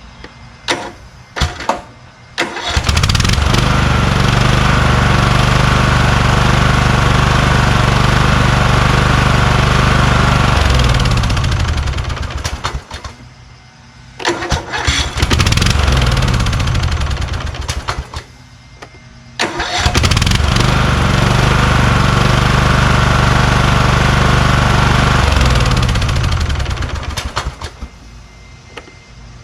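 Kohler Courage engine of a lawn tractor starting and running steadily in three spells, each cut off with the engine shutting down, the pitch falling as it coasts to a stop before the quiet gaps. A few short clicks come just before the first start.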